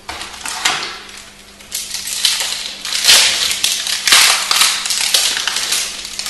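Foil plastic wrapper of a Magic: The Gathering booster pack crinkling and crackling as it is torn open by hand, loud and continuous, loudest around the middle.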